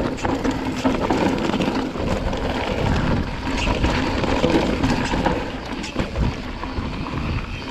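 Mountain bike riding down a rocky dirt trail: tyres crunching over loose rock, with many quick knocks and rattles from the bike, under low wind rumble on the microphone.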